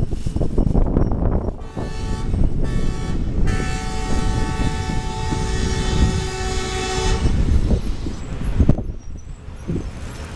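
A train's air horn sounds from the moving train, a shorter blast and then a long blast of about four seconds, over the steady rumble and clatter of the coach wheels on the track.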